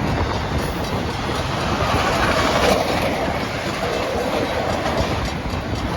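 A train's cars rolling past on the rails: a steady, loud noise of wheels on track with faint repeated clicks from the wheels.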